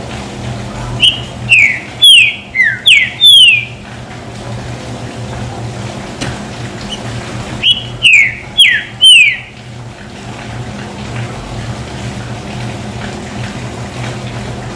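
Green-winged saltator (trinca-ferro) singing its 'chuva' song: two loud phrases of about five clear whistled notes, each note sliding downward, the phrases some five seconds apart.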